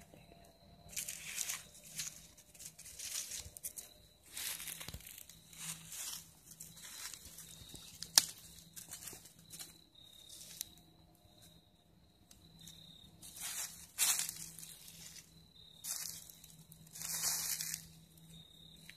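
Dry leaves and twigs crinkling and crunching in irregular bursts as a small fire is fed and stirred by hand, with one sharp click about halfway through. A faint steady high tone runs underneath.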